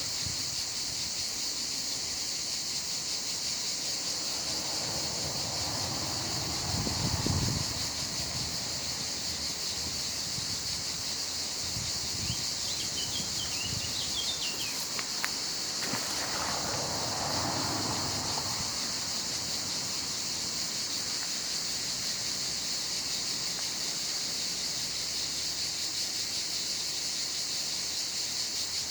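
Steady high-pitched insect chorus, with brief rustling about seven and seventeen seconds in and a short bird twitter about halfway through.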